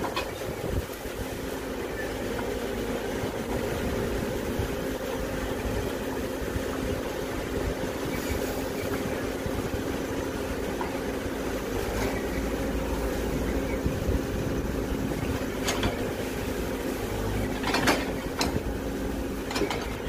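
Caterpillar 426F backhoe loader's diesel engine running steadily under digging load, with several sharp clanks near the end as the backhoe bucket hits brick and concrete rubble.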